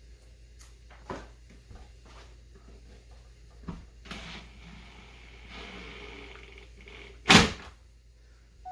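Hardwood workbench parts being handled and fitted: a few light wooden knocks, a stretch of scraping and rustling, then one loud wooden thud about seven seconds in.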